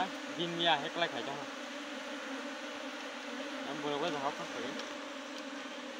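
Dense, steady buzzing of a wild honeybee colony swarming over its exposed comb. A person's voice cuts in briefly near the start and again about four seconds in.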